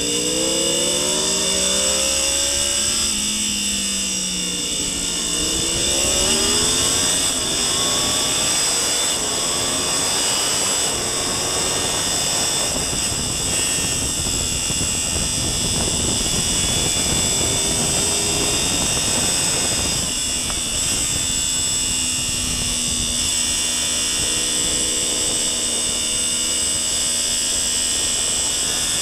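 Onboard sound of an Aprilia RSV4 sport bike on track at full speed: the V4 engine revs up through the gears over the first few seconds, then heavy wind rush takes over at around 170 km/h. Near the end the engine note settles steady again in a lower gear after braking.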